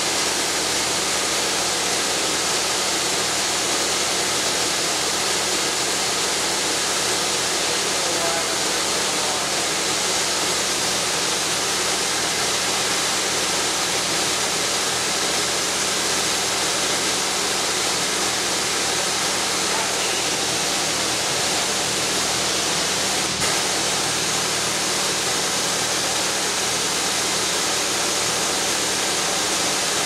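Pressure washer spraying water onto a combine harvester: a steady hiss of spray with a steady low hum underneath.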